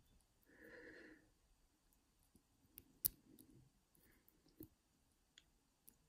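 Faint small clicks and ticks of a hook pick and tension wrench working the pins inside a brass ABUS No. 85/40 padlock, the sharpest about three seconds in, over near silence. This is single-pin picking of a lock with security pins, where the core gives slight counter-rotation as pins are worked.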